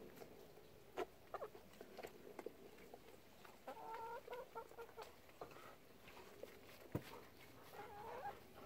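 Hens clucking softly, with a short run of clucks about four seconds in and another near the end. Two sharp taps, about one second in and about seven seconds in.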